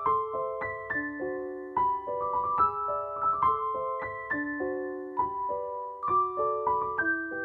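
Background music: a gentle piano melody with notes struck one after another over sustained chords.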